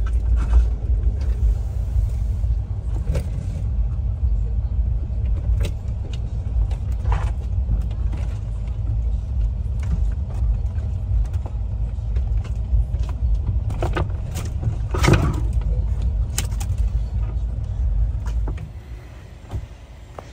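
Jeep Wrangler JL Rubicon on 37-inch tyres driving over a snowy off-road track, heard from inside the cab: a steady low rumble of engine and tyres, with scattered knocks and thumps, the loudest about three-quarters of the way through. Near the end the rumble drops away to a much quieter background.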